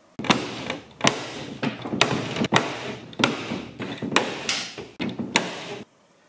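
Large long-handled lever pop rivet gun setting big pop rivets in an aluminum boat deck: about seven sharp snaps, roughly one a second, over a steady hiss. The sound stops abruptly near the end.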